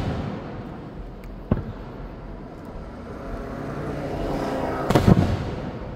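Aerial firework shells bursting: a sharp bang about a second and a half in, then a low rumble that builds to a louder cluster of booms about five seconds in, with a rolling echo after each.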